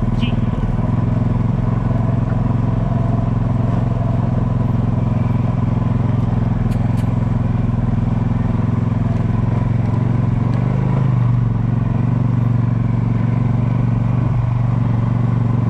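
Engine of a dryland-training quad (ATV) pulled by a sled-dog team, running steadily at low speed with an even, unchanging hum.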